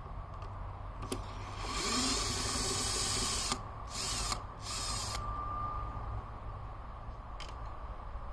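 Cordless screw gun backing out screws from a handheld leaf blower's starter recoil cover: one run of about two seconds, then two short bursts, with a few sharp clicks between.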